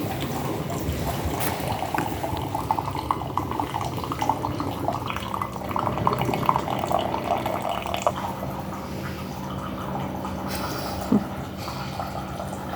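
A cat lapping and licking at its bowl, a dense run of quick wet clicks that thins out after about eight seconds, over a steady low hum. A single short knock sounds near the end.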